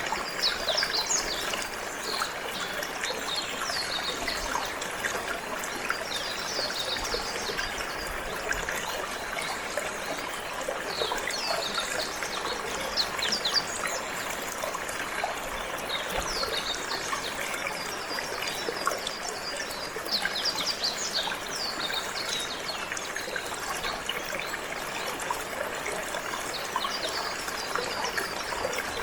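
Steady running water, with a canary singing over it in recurring bursts of rapid high chirps every few seconds.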